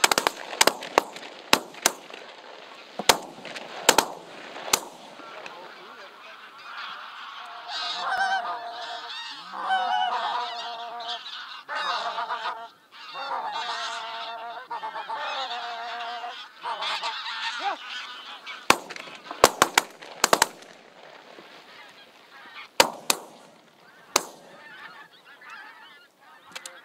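A large flock of greylag geese honking overhead. Clusters of sharp cracks cut through the calls in the first few seconds and again about two-thirds of the way in.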